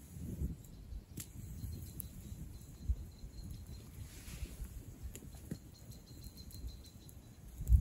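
Wood campfire burning, with scattered sharp crackles and pops over low background noise.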